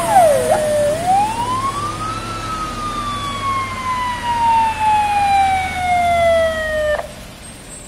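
Fire engine sirens wailing: a quick downward sweep, then one slow rise and a long falling wail that stops abruptly about seven seconds in, over a low engine rumble.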